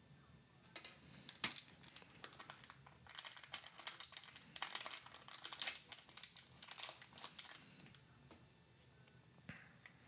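Faint crinkling and crackling of a metallic anti-static bag as an M.2 SSD is pulled out of it, irregular for several seconds, followed by a small click near the end.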